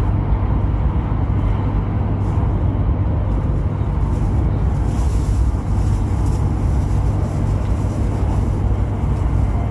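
Steady low rumble and rushing noise of a Chinese high-speed sleeper train running on the line, heard from inside the carriage.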